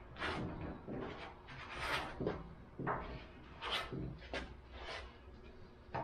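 Plastic body-filler spreader scraping soft filler across a sheet-metal panel in a run of short strokes, one or two a second.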